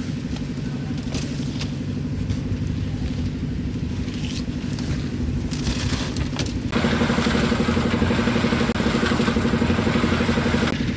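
An engine running steadily with a pulsing hum. About seven seconds in, it grows louder and a harsh scraping, rattling noise joins it until near the end.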